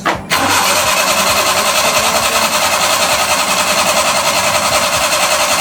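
A handheld power tool motor running at speed, a steady high whirring buzz with a fast flutter, starting abruptly and held for about six seconds.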